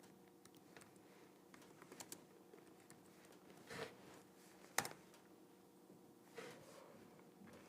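Near silence: faint room hum with a few scattered soft clicks and handling noises, the sharpest about five seconds in.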